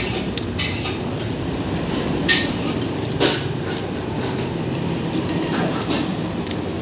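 Several short clicks of a metal fork against a plate and noodle slurps as a child eats fried noodles, over a steady hum of street traffic.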